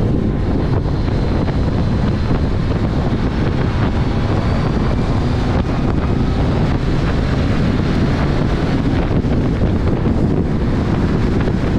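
Heavy wind buffeting on the microphone of a moving open-top 1964 MG Midget, over a steady low rumble of the car's engine and road noise. The noise is loud and even, without breaks.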